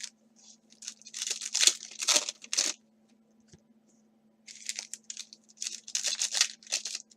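Trading-card pack wrappers being torn open and crinkled, in two spells of papery tearing and rustling with a short quiet gap between them, over a faint steady hum.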